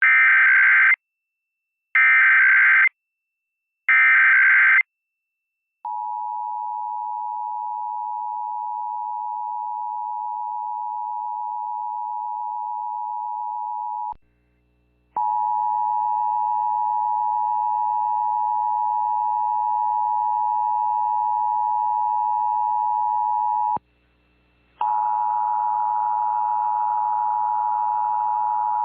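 Emergency Alert System Required Monthly Test tones: three one-second bursts of SAME header data, about a second apart, then the EAS two-tone attention signal held steady for about eight seconds. After a short break the attention tone sounds again twice, the later ones with a faint low hum underneath.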